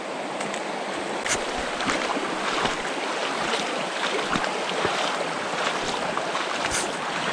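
Shallow mountain river running over a pebble bed, a steady rush of water, with footsteps splashing through the shallows.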